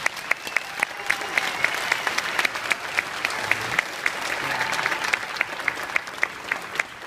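Audience applauding, with one clapper close by beating steadily at about four claps a second; the applause thins out near the end.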